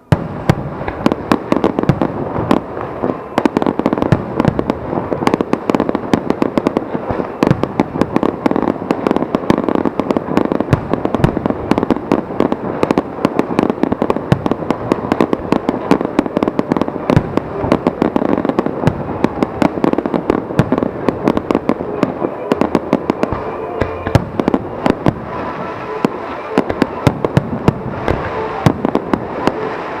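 Fireworks display: a dense, unbroken barrage of sharp bangs and crackling reports from many shells bursting in quick succession, beginning suddenly.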